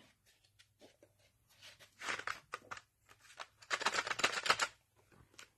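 Cardboard box of watercolor pencils being opened by hand: rustling and scraping as the inner tray slides out of its sleeve, in two short spells, about two seconds in and again around four seconds.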